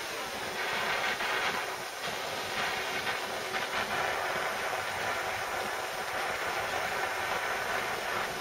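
Handheld butane blow torch burning with a steady hiss as its flame heats a lead fishing weight, getting the lead hot enough for the powder coating to melt onto it.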